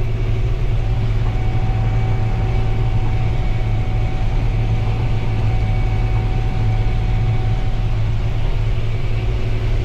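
Combine harvester running, heard from inside the cab while unloading grain on the go: a steady low engine drone, with a thin steady whine that comes in about a second in and stops about eight seconds in.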